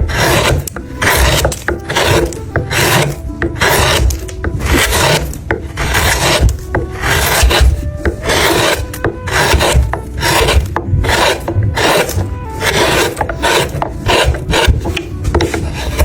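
Wood being carved by hand: a blade shaving wood in crisp, repeated scraping strokes, about one or two a second.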